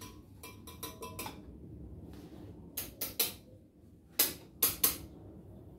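Metal kitchenware clinking and knocking: a quick run of light clinks with a short ringing tone about half a second in, a few sharper knocks around three seconds, and a louder group of three near the end.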